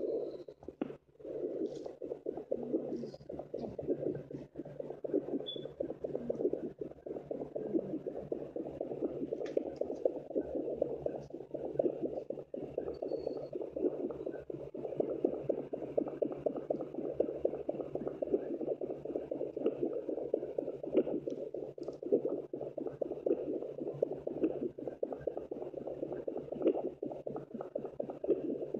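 Fetal Doppler speaker relaying unborn puppies' heartbeats from a pregnant German Shepherd's belly: a steady whooshing, crackling stream of fast overlapping beats, with two distinct heartbeats heard at once.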